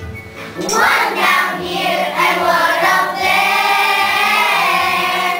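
A group of young children singing together, coming in about a second in and holding a long note through the second half before breaking off at the end.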